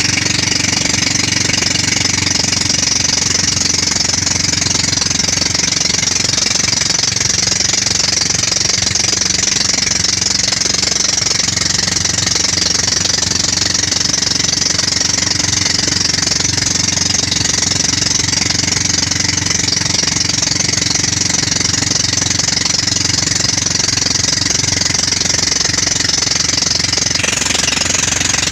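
Boat engine running steadily and loudly under way, with the rush of water and wind over it.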